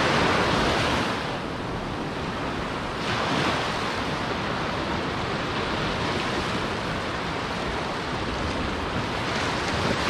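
Small waves breaking and washing up on a sand beach: steady surf, loudest in the first second, with another wave breaking about three seconds in.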